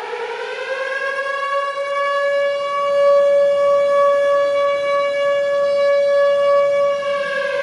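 Civil defense siren sounding one loud, steady wail. It rises in pitch at first, holds a single tone, and starts to fall away near the end. This is the commemorative siren for the moment of the 1945 Proclamation of Indonesian Independence.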